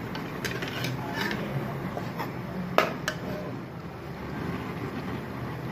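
Metal ladle knocking and scraping in a wide metal pan of heating ghee: a few light clinks and one sharper clink near the middle, over a steady low hum.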